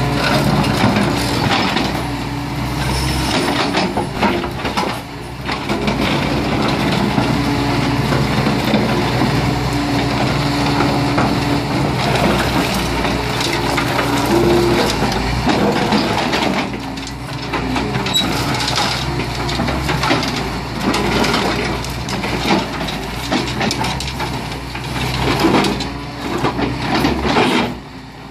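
Tracked excavator's diesel engine running under hydraulic load while its demolition crusher shears bite into and break up an arched masonry drainage channel, with irregular cracking and crunching of the broken masonry over the steady engine drone.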